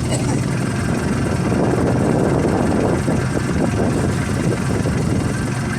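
A boat's engine running steadily with a constant low hum.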